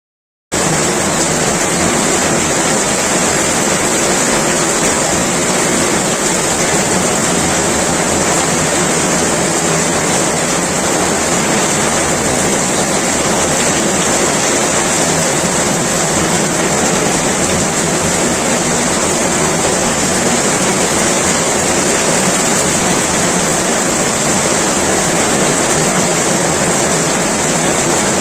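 Heavy rain pouring down steadily, a loud even hiss that cuts in suddenly about half a second in.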